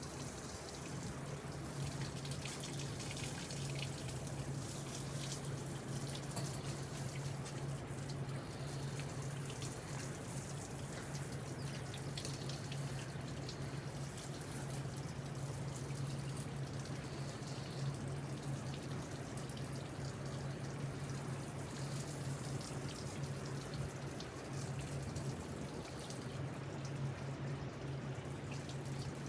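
Water running and splashing steadily against a door during a flood test, under a steady low hum.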